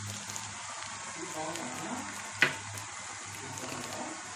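Brinjal pieces sizzling steadily as they fry in oil in a kadai, with one sharp click about halfway through.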